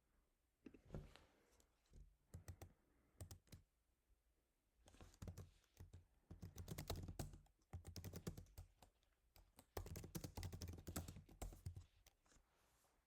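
Quiet typing on a computer keyboard while coding. A few scattered keystrokes come first, then two quick runs of typing, about five seconds and ten seconds in.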